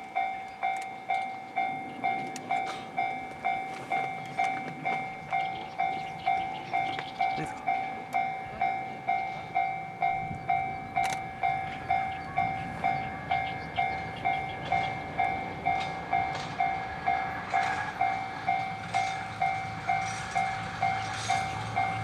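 Japanese railway level-crossing warning bell ringing, an electronic two-tone ding about twice a second. Under it a DE10 diesel-hydraulic locomotive's engine draws near, its low rumble growing louder in the last few seconds.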